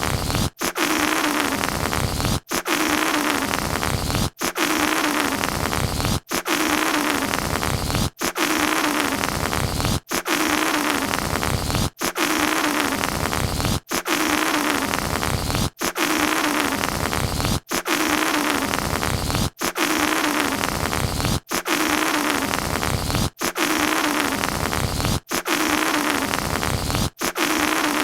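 Air let out through a rubber balloon's stretched neck, making a rasping, fart-like noise. It repeats over and over, each about two seconds long with a tiny break between, and a low tone in each slides slightly downward.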